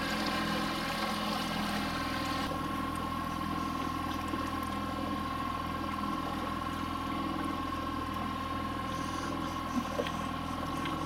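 Boat's outboard motor running steadily at trolling speed, an even hum with a steady high whine over it.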